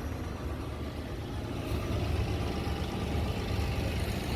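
Volvo VNL semi truck's diesel engine idling with a steady low rumble, getting a little louder about a second and a half in.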